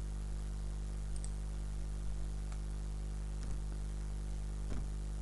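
Steady low electrical hum on the recording, with a few faint computer mouse clicks.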